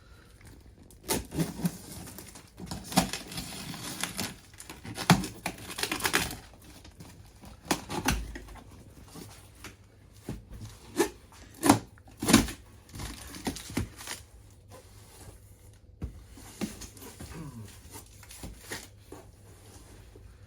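A cardboard box being opened and unpacked by hand: irregular tearing and ripping, packaging crinkling, and sharp knocks and clatters, busiest in the first few seconds.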